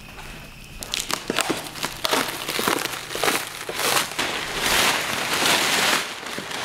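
Plastic wrap and brown packing paper crinkling and rustling as they are pulled off a long packed part. It starts about a second in, with many small crackles.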